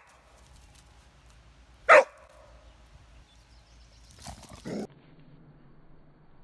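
Australian cattle dog (blue heeler) barking at a snapping turtle: one loud, sharp bark about two seconds in, then a quieter, lower bark a little before the end.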